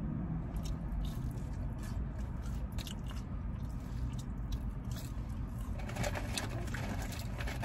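Close-up mouth sounds of someone eating Raising Cane's fried chicken meal: bites and chewing with irregular crisp crunches.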